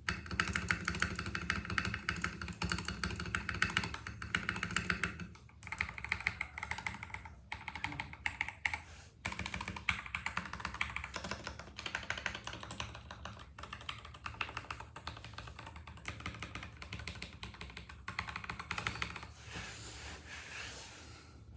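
Fast typing on a modded Vortex VX8 mechanical keyboard fitted mostly with Akko Cream Yellow and pre-lubed Gateron Milky Yellow Pro linear switches. It makes a dense, continuous stream of keystroke clacks with a couple of brief pauses, thinning out and getting quieter near the end.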